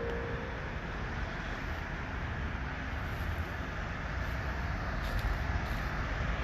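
The last note of an outdoor loudspeaker chime fades out just after the start, leaving steady outdoor background noise of distant road traffic with a low rumble.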